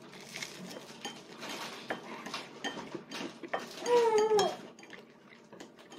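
Scattered light clinks and taps of dishes and cutlery at a meal table. About four seconds in, a short high-pitched vocal sound, the loudest moment.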